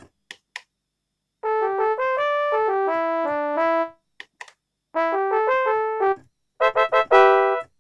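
Kurzweil K2000 synthesizer playing one of its factory programs with no effects: a run of single notes, a shorter run, then a few short, clipped chords near the end.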